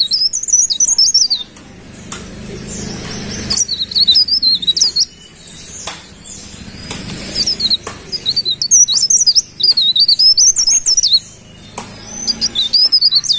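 Cikrak daun, a small leaf warbler, singing in bursts of rapid, high, twittering notes, four phrases of one to three seconds with short pauses between, along with a few faint clicks.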